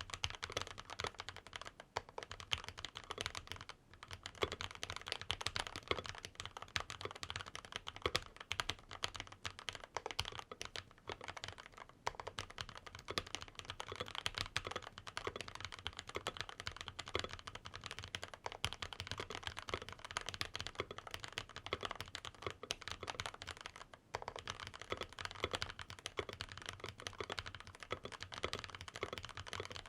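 Continuous fast typing on a Varmilo VA87M mechanical keyboard with Gazzew Boba LT long-pole linear switches, a steel plate, PBT keycaps, Poron case foam and a tape mod, giving a deep, thocky keystroke sound. There are brief pauses about 4 and 24 seconds in.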